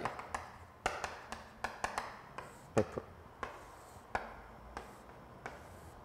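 Chalk tapping and scratching on a chalkboard during writing and line drawing: a string of short, irregular taps.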